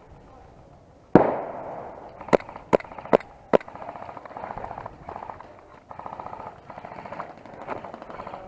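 Airsoft gunfire. A loud bang about a second in is followed by four sharp shots about 0.4 s apart, then a stretch of fast, rattling clatter.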